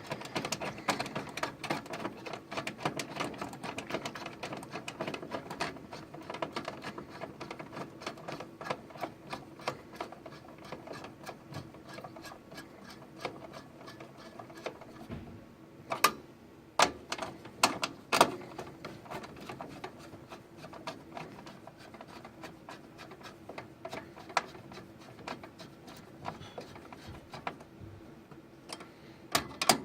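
Typing on a computer keyboard with mouse clicks: a fast, steady run of light clicks, with a few louder clacks about halfway through.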